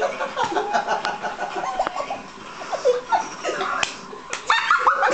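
People laughing and giggling, with a few sharp clicks in between.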